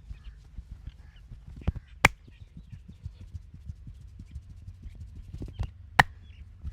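Hands rapidly tapping and patting during a head and back massage, a steady run of soft thuds about five a second, broken twice by a sharp loud crack, once about two seconds in and once about six seconds in.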